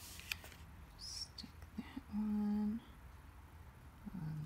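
A woman hums a short steady note about two seconds in, then starts a second hum that rises in pitch near the end. Soft paper taps and rustles come from cardstock being handled in the first second or so.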